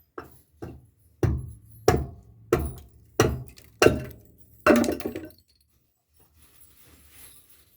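A hammer striking timber: two light taps, then six hard, evenly paced blows about two-thirds of a second apart, as when driving nails into deck framing.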